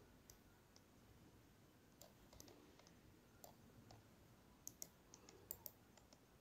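Faint, irregular computer mouse clicks over quiet room tone, coming closer together about five seconds in.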